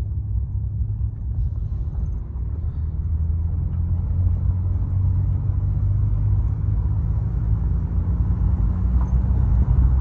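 Hyundai Verna sedan driving over rough ground: a steady low rumble of engine and road noise that grows slightly louder toward the end.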